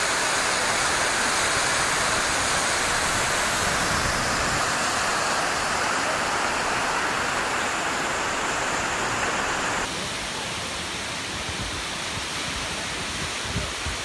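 Steady rush of falling water from the Takhkadon waterfall, a waterfall about 120 m high, that drops abruptly to a quieter, duller rush about ten seconds in.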